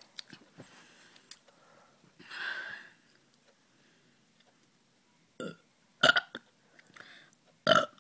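A girl burping: short, sudden, loud burps come in the second half, a couple of them close together. A softer rush of breathy noise comes about two seconds in.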